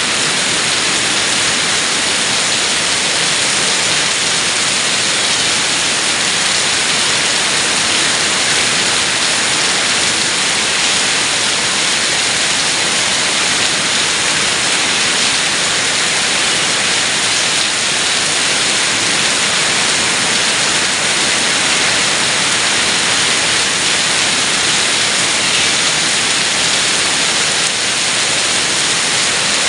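Heavy rain pouring down: a loud, steady, even hiss with no breaks.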